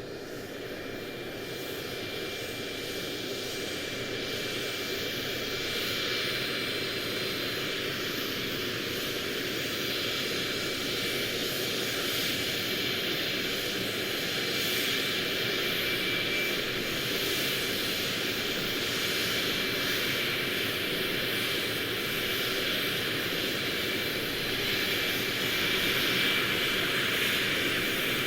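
Airplane engine noise: a steady rush with a thin high whine running through it, slowly growing louder.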